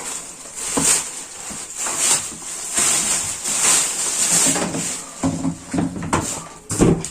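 Crinkling and rustling of packaging as the vacuum cleaner is unpacked and handled, with a few sharp knocks near the end.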